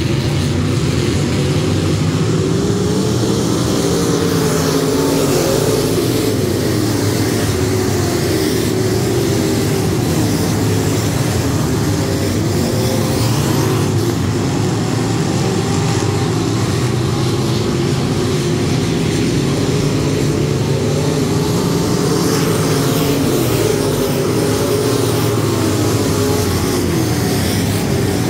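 A field of USRA limited modified dirt-track race cars at racing speed, their V8 engines revving together in a loud, continuous drone whose pitch keeps rising and falling as the cars go through the turns and down the straights.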